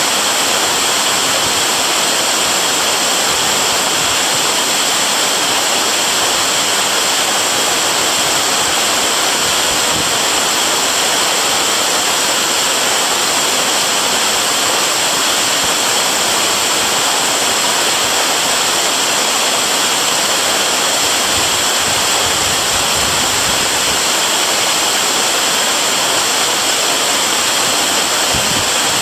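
Waterfall pouring steadily, a loud, even rush of falling water.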